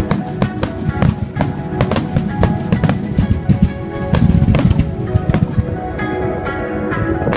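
Fireworks bursting in a rapid finale barrage, many sharp bangs and crackles a second over a deep rumble, with music of held notes playing at the same time.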